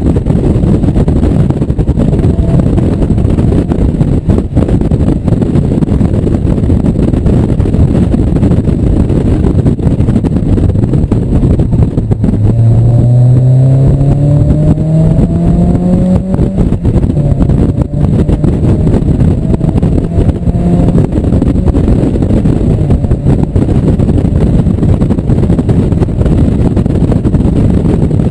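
Heavy wind buffeting and road noise in the open cockpit of a 1997 Mazda Miata at speed. About halfway through, the Miata's 1.8-litre four-cylinder engine comes through the noise, rising steadily in pitch as it accelerates out of a slow corner, then dropping at a gear change and holding for a few seconds.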